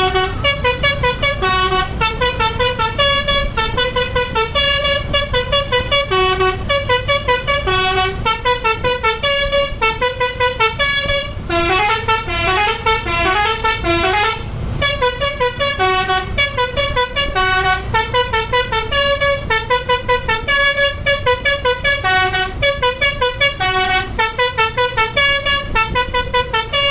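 Basuri telolet musical bus horn playing a quick, repeating tune of short pitched notes, with a run of upward-sliding notes about halfway through, over a steady low rumble.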